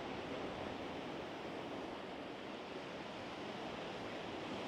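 Steady wash of sea surf with wind, an even rushing noise that holds level throughout.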